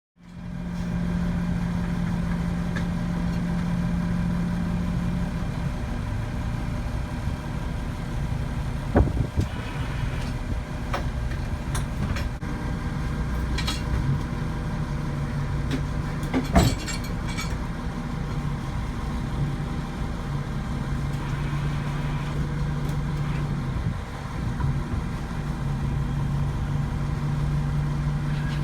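A truck engine running steadily, its hum shifting between a higher and a lower pitch several times, with a few sharp knocks around the middle.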